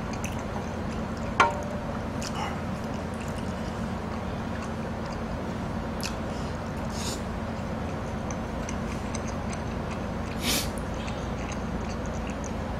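Steady room hum with a few quiet eating noises: a sharp click about a second and a half in, and faint short hissing sounds later on.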